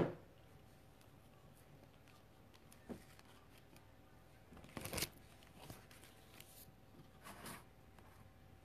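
Faint rustling and handling noises close to the microphone: a soft knock about three seconds in, then brushing and scraping sounds, the loudest about five seconds in and another about two seconds later.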